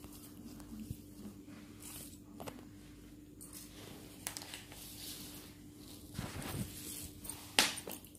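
Handling noises: faint rustling and scraping, with one sharp tap about seven and a half seconds in, over a steady low hum.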